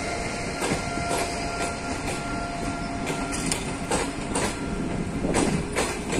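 Passenger coaches of a departing express train rolling past at low speed, their wheels clicking and knocking irregularly over rail joints above a steady rumble. A faint steady whine fades out about halfway through.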